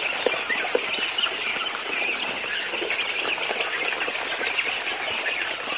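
A brood of young chicks peeping constantly, many birds calling at once in a dense, high-pitched chorus, with a few louder, lower calls in the first second.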